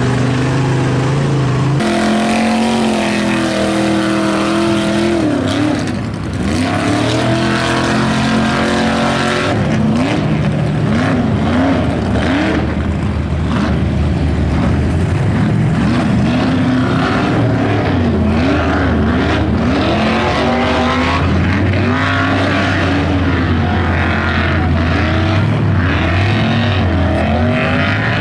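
Mud-bogging trucks' engines revving hard as they plough through a mud pit, the pitch swinging up and down over and over as the throttle is pumped. A second truck takes over partway through.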